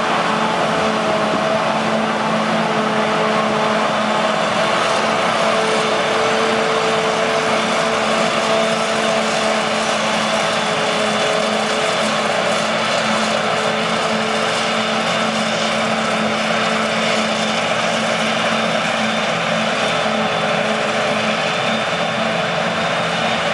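Claas Jaguar 970 self-propelled forage harvester working under load, chopping standing wheat for silage, with a tractor running alongside. The sound is a steady machinery drone with a few steady whining tones over it.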